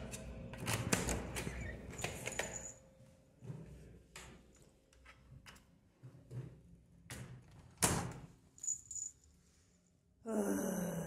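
A room door's key-card lock and metal lever handle being worked: a run of sharp clicks and knocks, then a few single clicks and knocks as the door is opened and pushed. A louder, noisier sound starts near the end.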